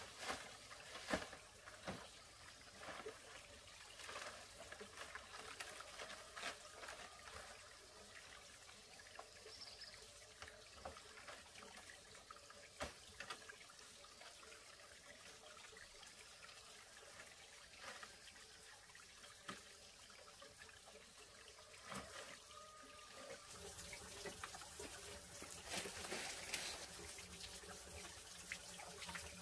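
Faint trickling water with scattered light clicks and knocks, a little louder and hissier near the end.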